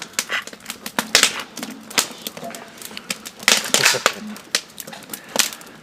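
Campfire crackling: quick, irregular pops and snaps of burning wood, with a louder rush of noise about three and a half seconds in.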